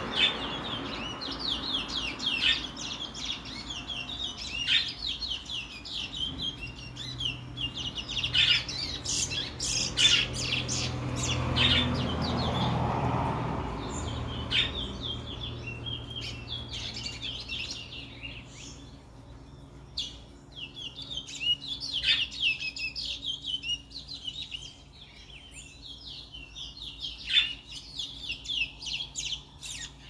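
Caged seed finch, the bird called a brown towa-towa in Guyana, singing a fast twittering song of quick high chirps in long runs, with a short lull about halfway through. A faint steady hum runs underneath.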